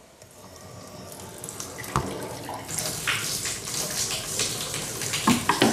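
Water running out of a newly fitted single pillar bath tap into the bath as the isolation valve under the bath is turned back on. The rushing builds up over the first couple of seconds, with a single knock about two seconds in.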